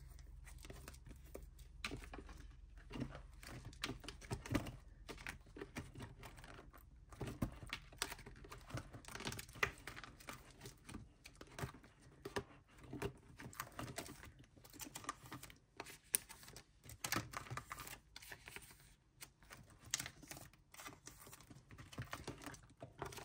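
Photocards and plastic sleeves being handled in a binder: irregular light clicks and taps with crinkling of plastic.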